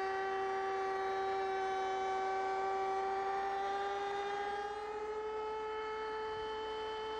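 Table-mounted router with a 3/8-inch rabbeting bit, running steadily while cutting a rabbet along walnut stock fed against the fence. About five seconds in, its whine rises slightly in pitch as the stock clears the bit and the motor unloads.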